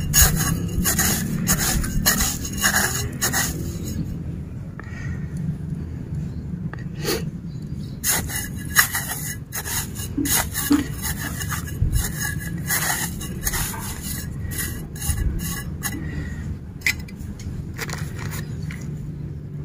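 A metal blade digging and scraping through dry rice-husk planting medium in a pot, in irregular rustling strokes that come in two busy spells with a sparser lull between about four and eight seconds in.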